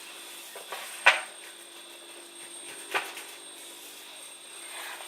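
Kitchenware being handled while flour is set out for dredging: two short knocks, a sharper one about a second in and a softer one about two seconds later, over a faint steady hum.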